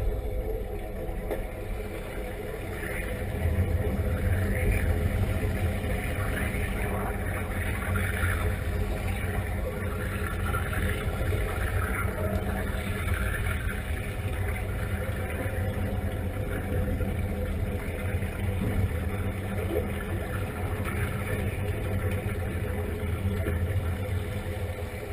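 Underwater sound in a dive tank: a steady low rumble with the crackling and bubbling of divers' exhaled air, busiest for the first half and thinner later.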